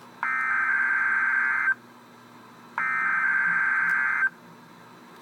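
Emergency Alert System SAME header: two bursts of digital data tone, each about a second and a half long, a little over a second apart. These are repeats of the coded header that carries the alert's event type, area and timing.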